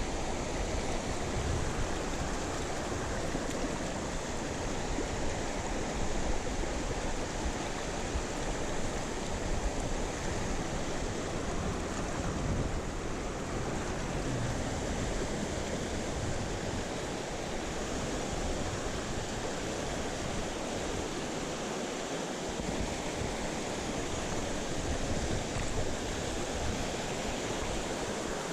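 Mountain stream water rushing as a steady, even noise.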